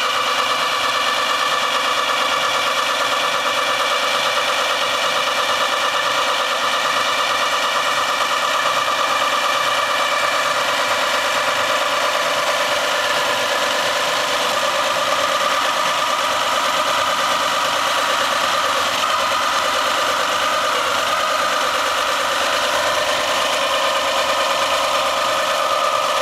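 Golf cart doing a stationary burnout, its drive held at a steady high speed while the rear tyres spin on the pavement. The sound is loud and continuous, a steady note made of several pitched tones that hardly change.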